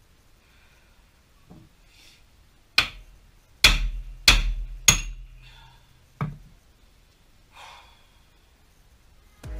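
Five sharp metal knocks, spaced roughly half a second to a second apart, some leaving a short low ring: blows struck while the front strut and suspension are worked loose.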